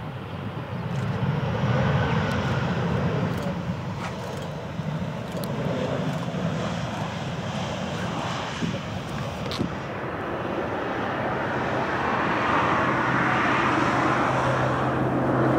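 Jet engine noise from an Airbus A320 rolling out on the runway after touchdown, a loud even rumble that swells about a second and a half in. About ten seconds in it gives way to an approaching Boeing 737-900 on final, whose engines make a steady low hum with a growing hiss above it.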